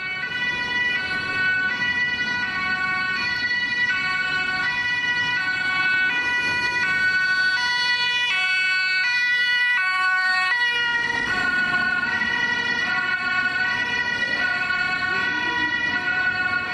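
German two-tone emergency-vehicle siren (Martinshorn) sounding, switching back and forth between a high and a low tone. It starts at the very beginning. Around the middle a second siren seems to overlap out of step.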